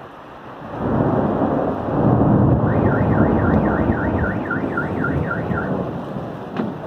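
Thunder rolls in loudly about a second in over steady rain. A car alarm warbles up and down, about three sweeps a second, for some three seconds in the middle.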